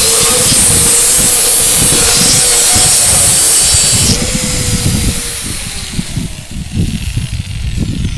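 A 5-inch mini angle grinder with a diamond blade cutting a manufactured-stone patio paver, a loud steady whine with hiss. About four seconds in it is switched off and the motor winds down in a falling tone, leaving low gusty rumble on the microphone.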